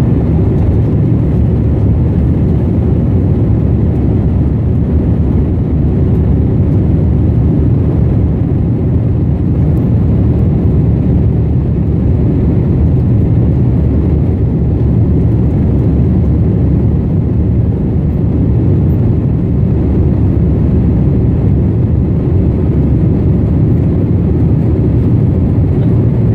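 Inside an airliner's cabin, a steady, loud low rumble of the jet engines and rushing air during the climb after takeoff.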